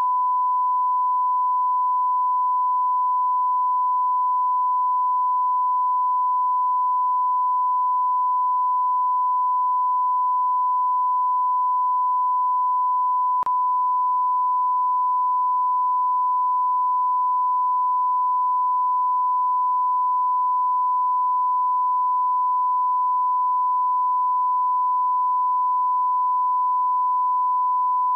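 Steady 1 kHz sine-wave test tone, one pure pitch at constant level, with one faint click about halfway through.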